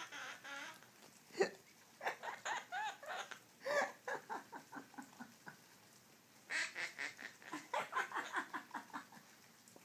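Quaker parrot (monk parakeet) imitating laughter: rapid runs of short, pitched ha-ha notes in three bouts, with a sharp click about a second and a half in.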